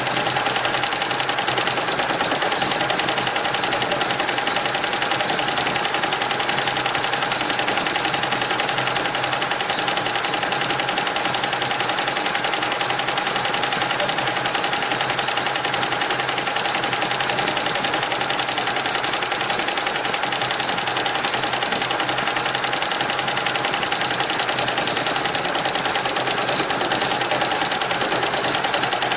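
Richpeace roll-to-roll multi-head embroidery machine stitching at speed: a fast, even clatter of needle strokes over a steady tone.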